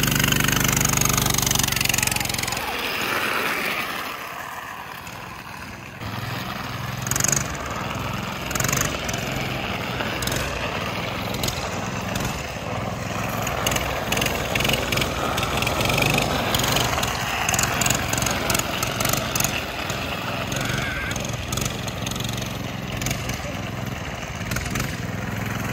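Small single-cylinder mini bike engine running under way, with wind on the microphone and scattered knocks. The engine sound drops away about three seconds in and comes back at about six seconds.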